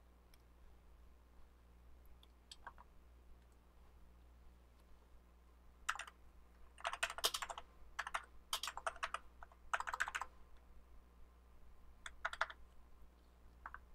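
Typing on a computer keyboard: a few scattered key clicks, then quick bursts of keystrokes from about six seconds in to about ten, and one more short burst near the end.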